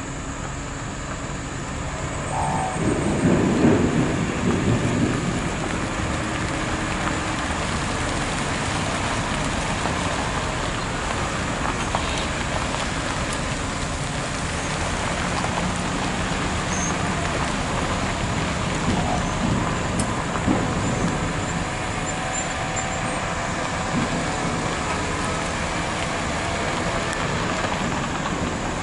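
Construction-site ambience: heavy diesel machinery and dump trucks running, a steady rumbling noise that swells louder and deeper a few seconds in.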